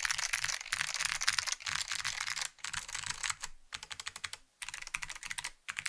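Typing on a custom Alps mechanical keyboard with clicky Blue Alps (SKCM Blue) switches on a POM plate, under IBM 5140 keycaps: a fast, dense run of sharp key clicks that breaks off briefly twice, thinning out toward the end.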